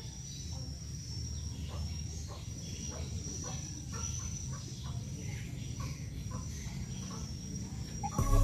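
Outdoor ambience: a steady high insect trill, like crickets, over a low rumble, with scattered faint clicks. Music starts loudly right at the end.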